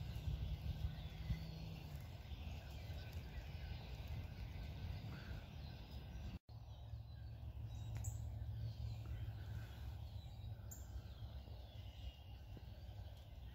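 Outdoor ambience: scattered faint bird chirps over a low steady rumble, which cuts out for an instant about six seconds in.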